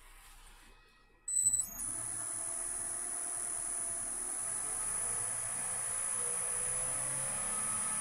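Wood lathe switched on about a second in and running steadily, with a high continuous whine and a fainter tone that rises slowly as the speed is turned up to about 1,000 rpm.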